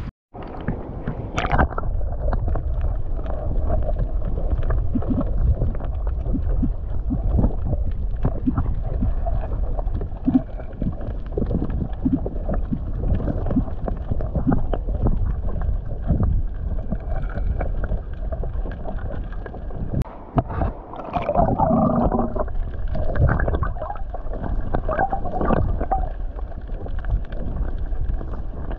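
Muffled underwater sound from a camera held below the sea surface: a steady low rumble of moving water with gurgling and many small scattered clicks. The sound loses its high end about two seconds in as it goes muffled.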